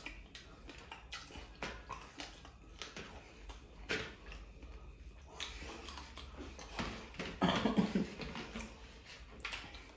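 Eating sounds: chewing and mouth noises with scattered light clicks of fingers picking food off steel platters, a sharper click about four seconds in and a louder stretch around seven and a half seconds in.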